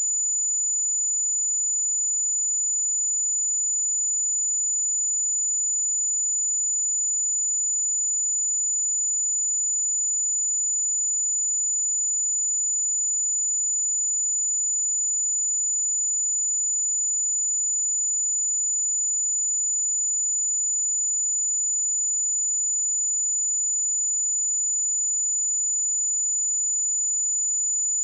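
A steady, high-pitched pure sine-wave test tone at 6983 Hz, held at one pitch and level.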